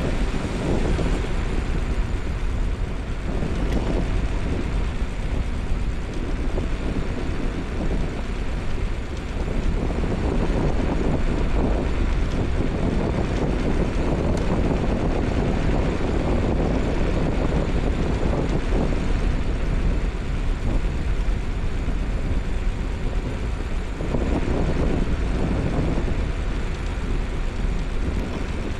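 Riding noise of a moving electric scooter: wind buffeting the microphone over the rumble of the tyres on the road, steady with no distinct events.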